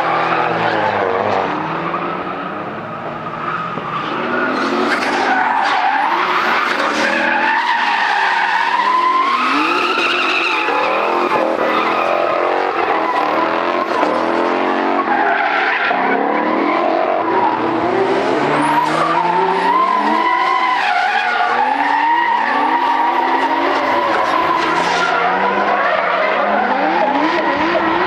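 Drift cars' engines revving up and down hard, with tyres squealing and skidding. The loudness dips briefly a few seconds in, then stays loud.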